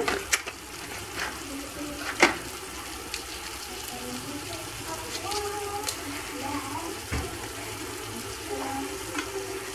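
Chicken and chopped onion frying in oil in a stainless steel pot: a steady, quiet sizzle, with a single sharper knock about two seconds in.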